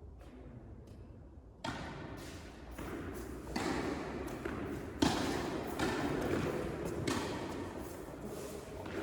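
Tennis ball being struck by rackets and bouncing on an indoor court, a string of sharp hits that starts about a second and a half in, each echoing in the hall; the loudest hit comes about halfway through.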